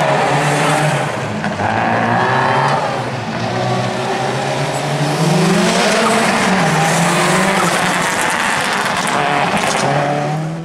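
Subaru Impreza WRX STi rally car's turbocharged flat-four boxer engine at full throttle as the car slides through a wet, gravelly corner and pulls away. The engine pitch rises and falls repeatedly as the throttle comes on and off.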